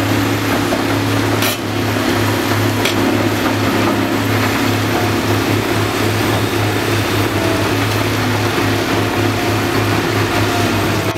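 Cat 345BL tracked excavator's diesel engine running steadily under working load, with two sharp knocks about one and a half and three seconds in.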